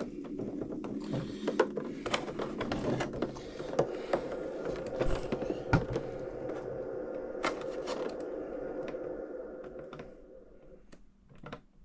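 Hands working plastic water-cooling line through the fittings of an RC boat: scattered small clicks, knocks and scrapes over a steady background tone that drops away near the end.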